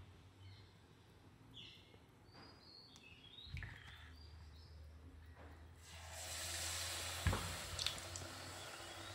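Faint bird chirps for the first few seconds; then, about six seconds in, a batter-coated patty hits hot oil and starts sizzling steadily, with a sharp knock about a second later.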